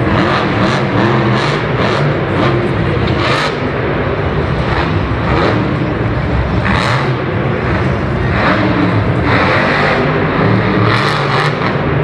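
Monster truck's supercharged V8 engine running loud and revving in repeated bursts as the truck drives around the arena floor.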